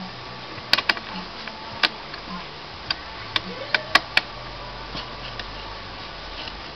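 Sharp clicks and knocks of plastic and metal parts being handled inside a desktop computer case, about eight in the first four seconds, then only faint ones.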